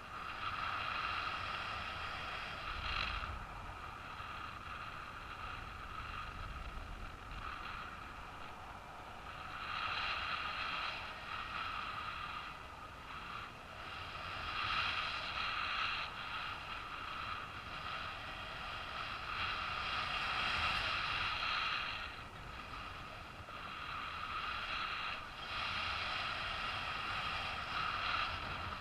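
Airflow and wind buffeting on a paraglider's camera in flight, with a high, steady tone and its overtones swelling in and out in spells of a few seconds.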